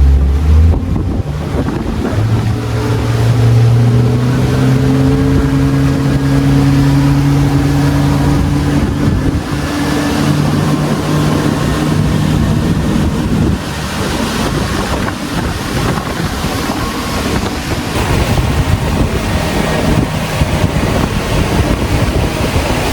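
A tour boat's motor running under way, its note rising slightly as it speeds up, then fading out about halfway through. After that, wind buffeting the microphone and water rushing past the boat.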